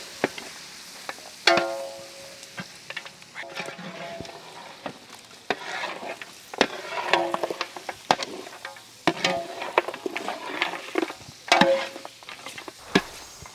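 A long metal spatula scraping and knocking against the inside of a large metal cooking pot as thick mutton masala is stirred, the masala sizzling over the fire. Background music of plucked string notes rings out every couple of seconds.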